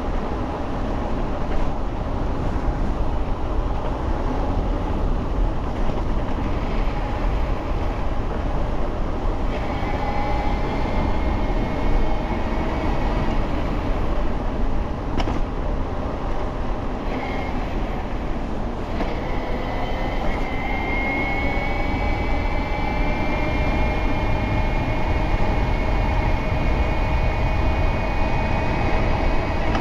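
Wind rushing over the microphone while riding a 72V BBSHD mid-drive electric bike. About a third of the way in, and again past the middle, a motor whine comes up and slowly climbs in pitch as the bike picks up speed.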